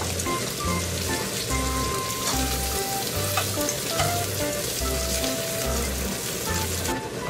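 Samgyeopsal (pork belly slices) sizzling steadily in a frying pan, with a few sharp clicks as metal tongs lift the cooked meat out. Light background music with a regular bass line plays underneath.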